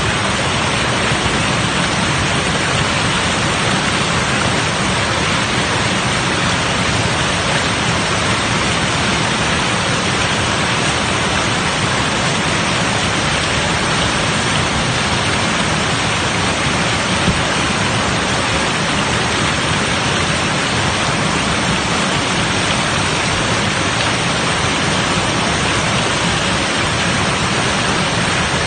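Loud, steady rush of whitewater pouring over a river weir.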